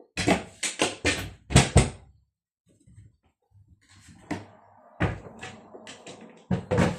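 Cupboard door fitted with a tiny door closer being forced, banging and knocking: a quick run of about five knocks in the first two seconds, a pause, then more thuds and clatter near the end. Forcing it breaks the closer's damping, so the door then slams.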